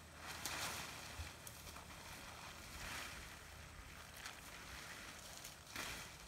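Polyethylene tarp rustling and crinkling as it is shifted over the grass, in three swells of noise: about half a second in, about three seconds in, and near the end.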